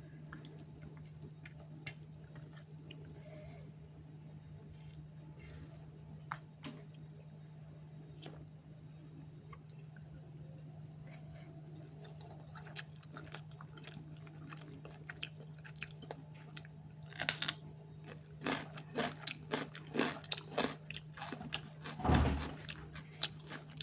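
Close-up chewing and crunching of food: sparse faint mouth clicks at first, then quick crunchy bites and chewing from about two-thirds of the way in, over a steady low hum.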